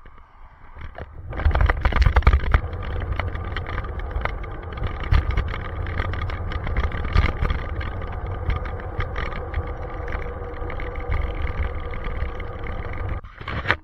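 Wind buffeting and rattling on a handlebar-mounted camera while riding along a road. A rough, heavy rumble with many small knocks starts about a second in and cuts off abruptly near the end.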